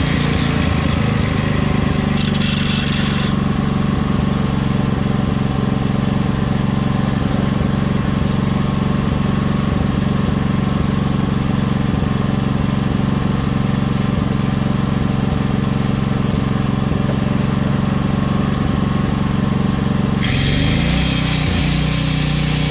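A motor runs steadily; about twenty seconds in, an angle grinder's cut-off disc starts cutting steel, adding a loud high grinding hiss.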